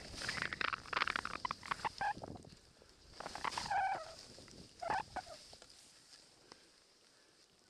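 Skis sliding and hissing through deep powder snow, loudest at the start, then fading to a low hiss. In the middle come two short high-pitched whoops about a second apart.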